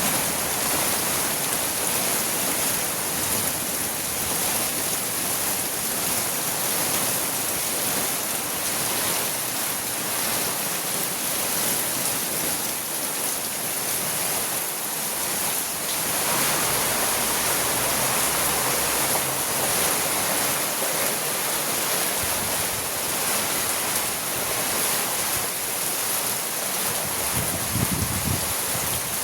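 Heavy rain falling steadily, a dense even hiss of water, with a brief low rumble near the end.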